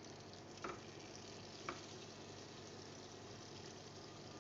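Butter melting and sizzling faintly and steadily in a pan over a low gas flame, with two light clicks about a second apart.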